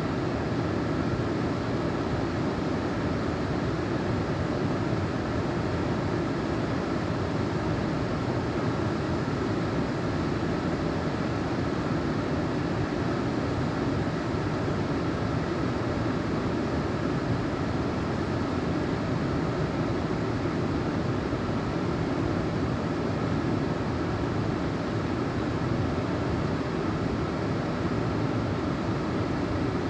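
Steady, even rush of creek water flowing through the canyon.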